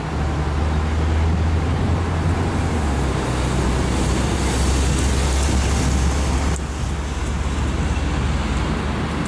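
Steady, loud, low rumble of motor noise, with a slight drop in level about six and a half seconds in.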